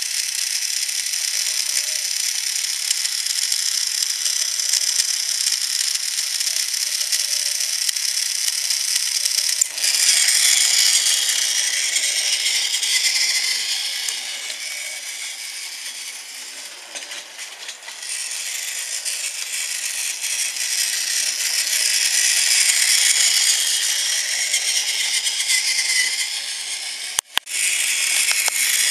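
Battery-powered Tomy toy trains running on plastic track: a steady, high-pitched rattling whir of their small motors and plastic gears, which grows louder about ten seconds in and drops out briefly near the end.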